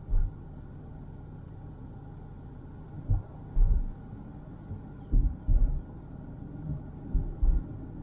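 A car being driven, heard as a steady low road rumble. Brief low thumps come at the start and then in pairs about a second apart near the middle and toward the end.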